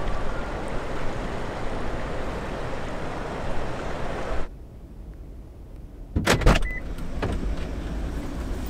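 Steady road and engine noise of a car, which cuts off abruptly about four and a half seconds in. A quieter stretch follows, then a few loud knocks about two seconds later, and the steady noise comes back.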